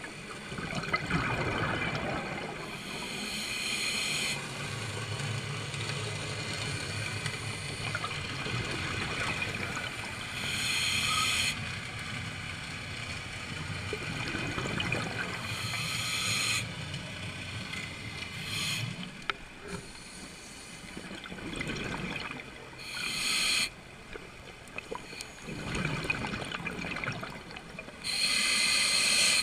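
Scuba breathing through a regulator underwater, heard through a GoPro housing: five loud hissing, bubbling breaths several seconds apart, over a continuous watery wash, with a low steady hum under the first two-thirds.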